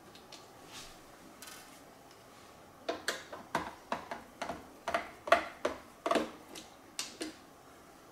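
Hard plastic housing parts of a Roomba Clean Base clicking and knocking as they are handled and set down on a granite countertop: a quick, uneven run of about a dozen sharp clicks starting about three seconds in.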